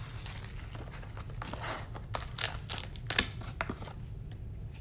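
Plastic wrapping crinkling and a cardboard Panini Gold Standard trading-card box being handled and opened, with a few sharp snaps of card and foil, the loudest a little after three seconds in.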